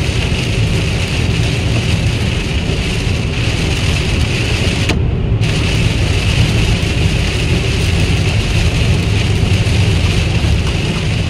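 Car cabin noise while driving: a steady low rumble of engine and road with a hiss of tyres on a wet road. The hiss drops out briefly about five seconds in.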